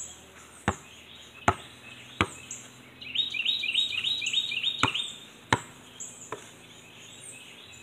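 A basketball bouncing: six sharp bounces in two runs of three, each about three-quarters of a second apart, like dribbling. Birds chirp throughout, and a bird sings a quick run of repeated notes in the middle.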